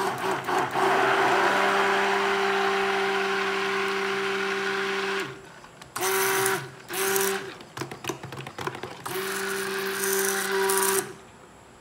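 Handheld stick blender running in a plastic bowl, blending coconut milk into cold-process soap oils. It runs steadily for about five seconds, gives two short pulses, then runs again for about two seconds and stops.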